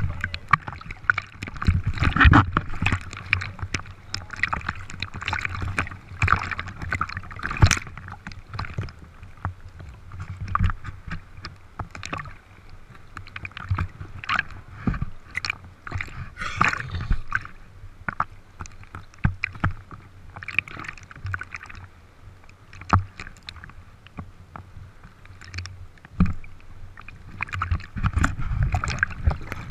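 Sea water lapping and splashing against a handheld GoPro held at the surface. It comes as an irregular run of small sloshes and knocks with low thumps.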